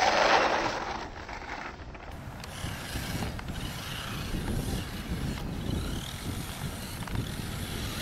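Radio-controlled New Bright Rhino monster truck driving through sand: its battery-powered electric motor runs steadily as the tyres churn the sand, after a loud burst of noise at the start as it leaps over the bunker's edge.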